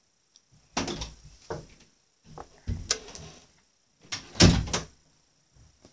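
A series of knocks and bumps close to the microphone with rustling between them, the loudest pair about four and a half seconds in: handling and bumping noise near the recording phone.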